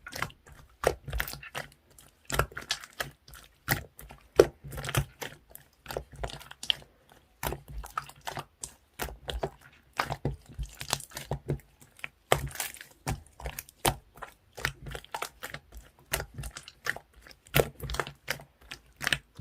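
Marbled slime being handled and pressed, giving a stream of irregular sticky clicks, several a second, some louder than others.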